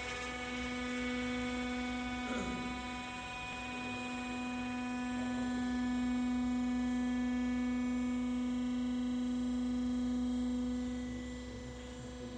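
The lifting drive of a GFJ-22KW high-speed mixer humming steadily as the mixer head rises. It is one pitched hum with a row of overtones, and it grows quieter about eleven seconds in.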